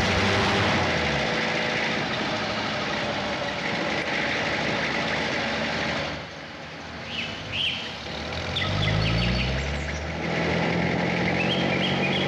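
Jeep engine running as it drives along a rough road, with birds chirping now and then. A little past halfway the engine goes quieter for a moment, then its note rises as it revs up again.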